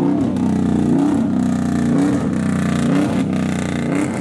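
Truck engine revved over and over, its pitch climbing and dropping about once a second.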